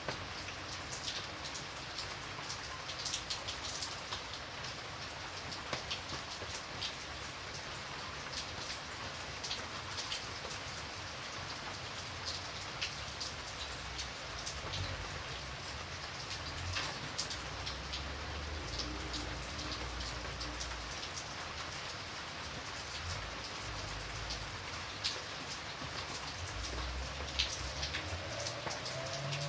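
Steady rain falling on a surface, with many separate drops ticking sharply over a constant hiss. A faint low rumble comes and goes in the second half.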